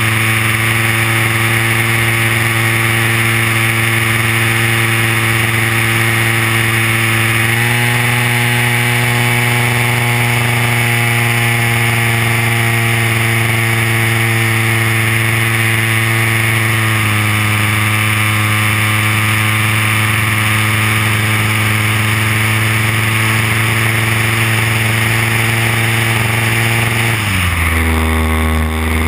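DLE 30cc single-cylinder two-stroke gas engine of a large RC DHC-2 Beaver, heard from a camera on the plane, running steadily over a hiss of wind and propeller. The pitch steps up slightly about a quarter of the way in and back down just past the middle. Near the end the throttle is pulled back and the pitch drops quickly as the plane comes down low over the ice.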